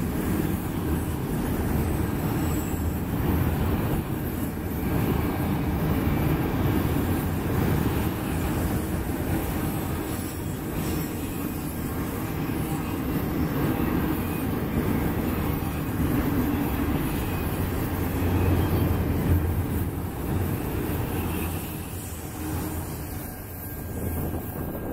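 Freight cars rolling past at close range: a steady rumble of steel wheels on the rails, dipping slightly in loudness near the end.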